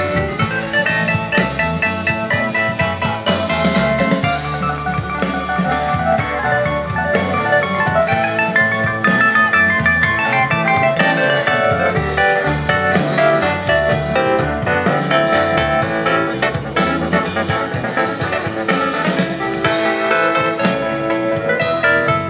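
Live band playing through amplifiers: electric guitars and keyboard carry sustained melodic lines over a drum kit keeping a steady beat.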